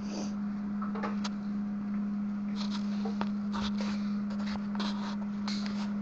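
A MIG welder laying short tack welds: a steady electrical hum with brief crackling bursts, coming more often in the second half.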